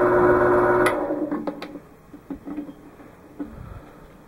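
Wood lathe's electric motor running with a steady hum, cut off with a click about a second in and winding down. A few light clicks follow as the switch and its safety key are handled.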